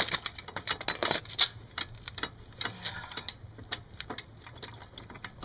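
Light metallic taps and clicks at an irregular pace, from tapping on a stuck motorcycle rear axle to drive it out of the swingarm.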